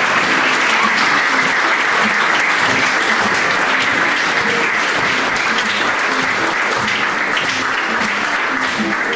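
Audience applauding, a dense steady clapping, with faint music underneath.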